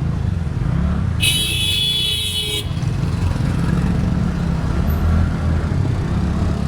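Road traffic heard from a moving scooter: a steady low rumble of engine and wind, with a vehicle horn honking once for about a second and a half, about a second in.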